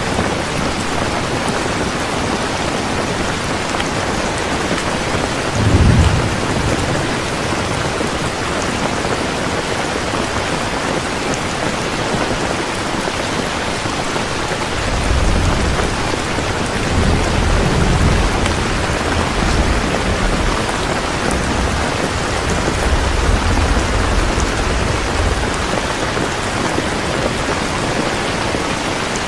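Heavy rain falling steadily, with a short clap of thunder about six seconds in and long, low rolls of thunder through the second half.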